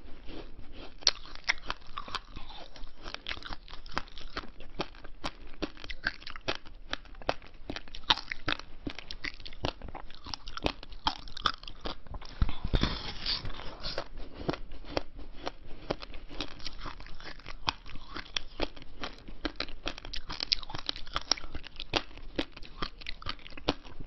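Frozen ice cubes being bitten off and crunched between the teeth: a continuous run of crisp cracks and crunches, with one heavier crunch about halfway through.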